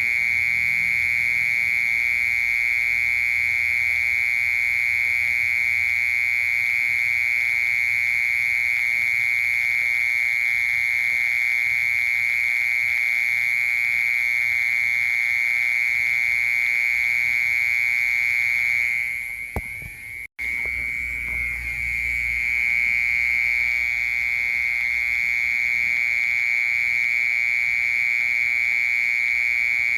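A cricket singing: one continuous high-pitched trill held at a steady pitch. It fades and breaks off for a moment about two-thirds of the way through, then carries on at the same level.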